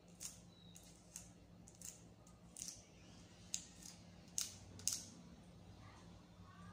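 Small sharp plastic clicks and taps from handling a smartphone and its plastic film and pieces, about ten of them at uneven spacing, loudest a little past four seconds in. A faint steady low hum runs underneath.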